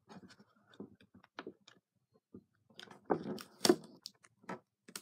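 A sheet of paper being handled and pressed down on a wooden tabletop: scattered small crinkles and taps, with a louder cluster of crackles about three seconds in.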